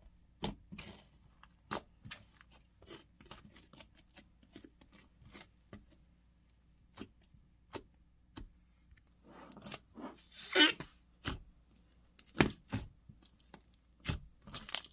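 Thick white crunchy slime full of bead add-ins (Compound King Whipped Bingzu Cuties) being pressed and poked by fingers: scattered crackles and pops, with a louder run of crackling about ten seconds in.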